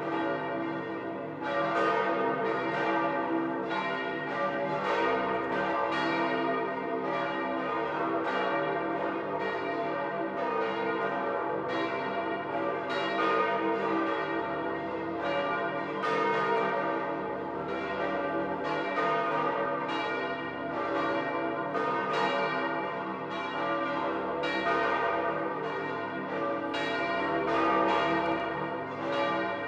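The great peal of St. Peter's Basilica: several large church bells ringing together, their strokes overlapping in a steady, unbroken peal. This full ringing is the signal announcing the election of a new pope.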